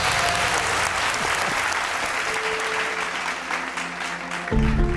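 Wedding guests applauding, with music under the clapping; the applause thins out and about four and a half seconds in it gives way suddenly to a new, louder piece of music.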